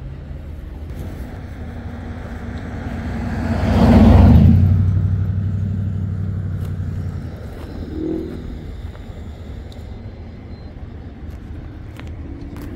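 A road vehicle passes close by, its engine and tyre noise building to a peak about four seconds in and then fading over the next few seconds, over a steady low traffic hum.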